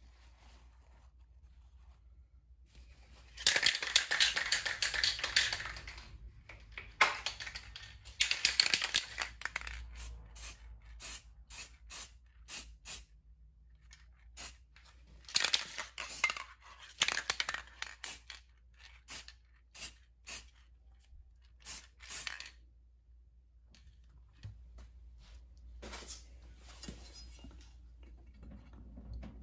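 Paper towels rustling and crumpling in bursts as they are pushed and packed into a metal scooter frame, with short scuffs and clicks in between.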